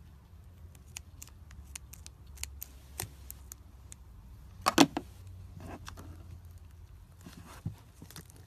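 Slime-filled stress ball being handled and cut: scattered small clicks and taps, with one louder short burst a little after the middle.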